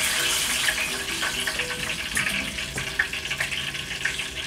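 Hot oil in a kadai sizzling and crackling on high flame after a batch of breaded, deep-fried stuffed mushrooms has been lifted out, a dense hiss full of fine pops that gradually fades.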